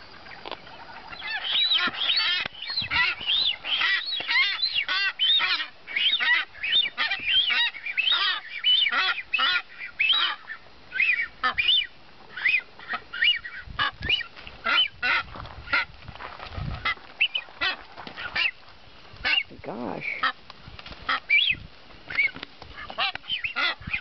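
Nazca boobies calling in rapid runs of short calls, one after another, starting about a second in, as they squabble over a female.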